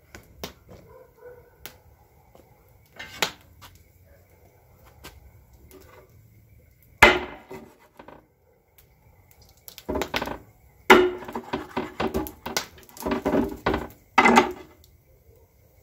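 Kitchen knife cutting up a whole fish on a wooden cutting board. A few scattered knocks and a sharp chop about seven seconds in, then a run of quick chops and knocks from about ten seconds in until near the end.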